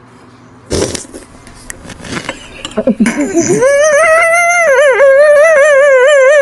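Cartoon crying sound: a sudden loud burst about a second in and some rough low sobs, then a high, wavering wail held for about three seconds.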